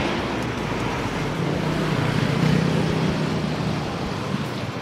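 Street traffic noise: a motor vehicle's engine running close by, its hum growing louder toward the middle and then easing off, over a steady background of road noise.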